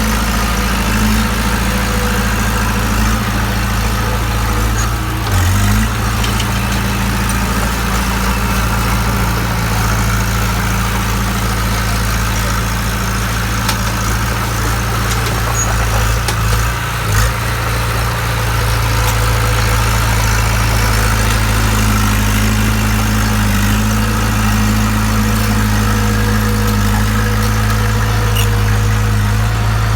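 Bulldozer's diesel engine running at a steady idle, with a constant low hum.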